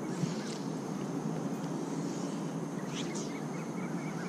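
Steady low outdoor background rumble, with two faint short high chirps about half a second in and again about three seconds in.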